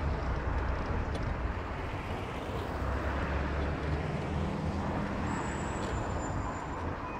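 A car driving, with steady road noise and a low engine rumble.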